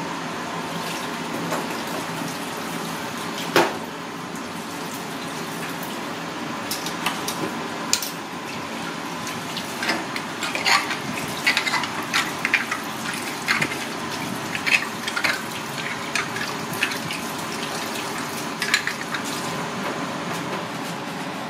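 Water running from a tap into a stainless steel sink, with one sharp knock about three and a half seconds in and a scatter of short clicks and clatters through the middle of the stretch.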